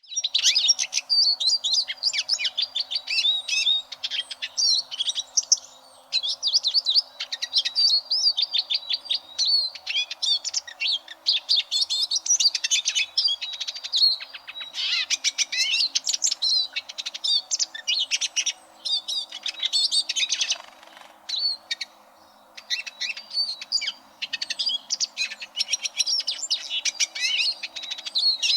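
Eurasian siskin singing: a fast, continuous twittering song of chirps and trills in long phrases separated by brief pauses, starting abruptly.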